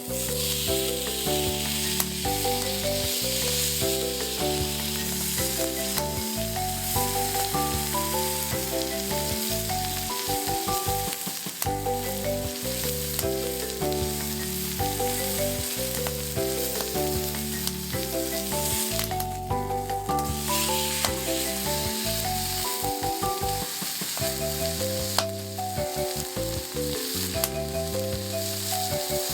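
Steak sizzling in a Muurikka campfire frying pan: a steady frying hiss throughout, under background music with a changing melody and bass line.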